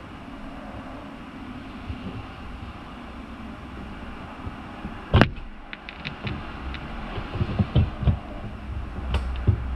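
Windshield wiper arm and blade being worked against the windshield glass: one sharp snap about five seconds in, then a run of lighter clicks and taps. Heard from inside the car, over a steady low hum.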